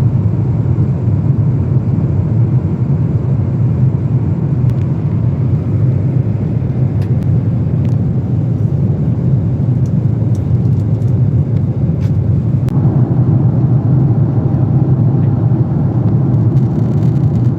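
Steady low rumble of a Boeing 777-300ER's engines and rushing air, heard inside the airliner's cabin. It grows a little brighter about two-thirds of the way through.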